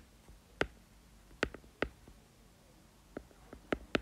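Stylus tip clicking and tapping on a tablet screen while words are handwritten: irregular sharp clicks, several in quick succession about a second and a half in and again near the end.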